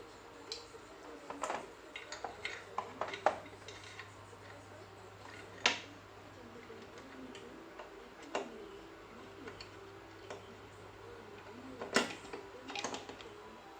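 Irregular sharp clicks and knocks of small hard parts and tools being handled while a flat-screen TV is reassembled, the loudest about three, six and twelve seconds in, over a faint steady hum.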